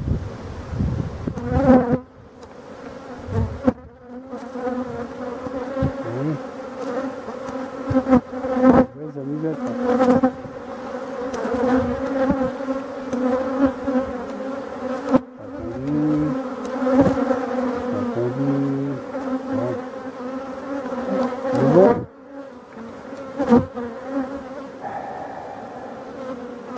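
Honeybees of a large colony buzzing over an opened hive, a dense steady hum. Now and then there are short knocks and scrapes as the wooden frames are pried up and lifted out with a frame grip.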